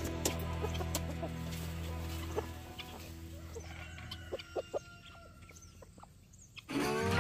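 Chickens clucking, under background music that drops away about two and a half seconds in and comes back loud near the end.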